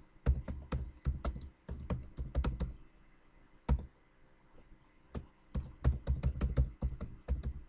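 Typing on a computer keyboard: a fast run of keystrokes, a lull of about two seconds with a single keypress, then a second fast run near the end.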